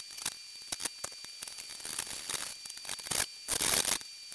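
A rag scrubbed along a lathe's greasy lead screw: irregular rubbing and scraping with small clicks and knocks, and a longer run of scrubbing about three and a half seconds in.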